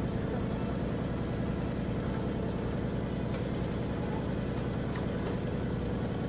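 Heavy truck engine idling steadily with an even low throb.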